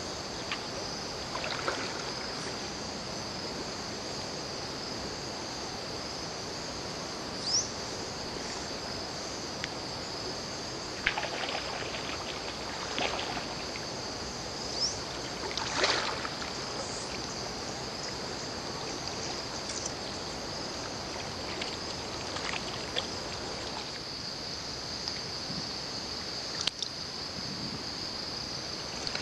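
Steady high insect chorus, with short water splashes now and then, the loudest about midway, as a hooked fish is played in shallow water on a fly rod.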